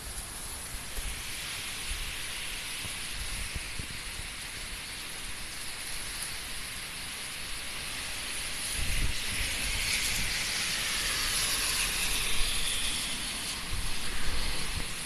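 Typhoon wind and heavy rain: a steady rushing hiss that swells about nine seconds in, with low buffeting thumps on the microphone near the end.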